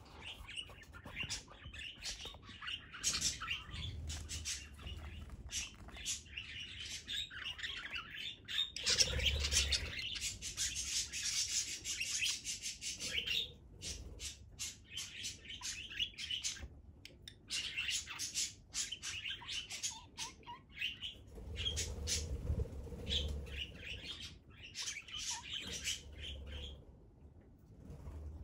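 Budgerigars chattering and warbling in a continuous stream of quick chirps and squawks, busiest about ten seconds in.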